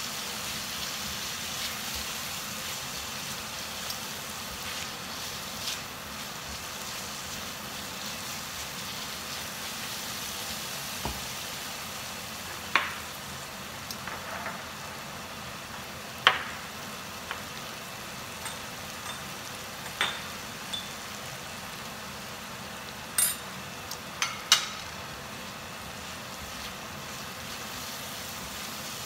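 Rawon spice paste with lemongrass sizzling in hot oil in a wok as it is stir-fried: a steady frying hiss with the spatula stirring. A few sharp clicks stand out, mostly in the middle and second half.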